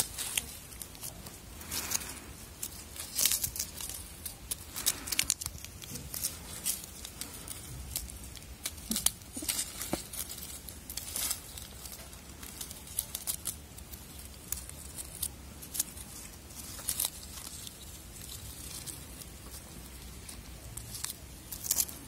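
Crinkly plastic wrapper toy on a string crinkling and crackling in short, irregular bursts as a kitten paws and grabs at it, with dry leaves rustling under the kitten.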